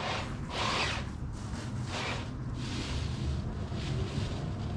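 Wind buffeting the microphone with a steady low rumble, and dry leaves rustling in three swells.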